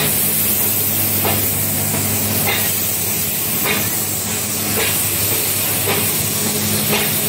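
Nilgiri Mountain Railway steam locomotive hissing steadily, with a low steady hum and a faint regular beat about once a second.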